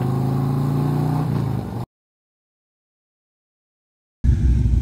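Harley-Davidson Road Glide's V-twin engine running steadily while riding, heard from the bike. It cuts off abruptly to dead silence about two seconds in. Near the end a loud low rumble starts suddenly.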